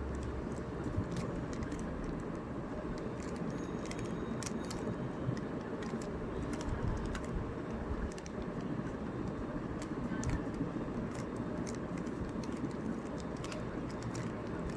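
Plastic Rubik's Cube being turned by hand: irregular, quick clicks of its layers snapping round, over a steady low background hum.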